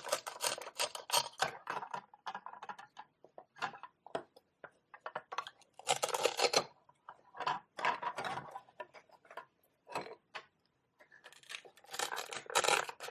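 Velcro pretend-food toys being cut apart with a toy knife: rasping Velcro tears as the pieces separate, most clearly about six seconds in and again near the end, among light clicks and knocks of the toy pieces being handled.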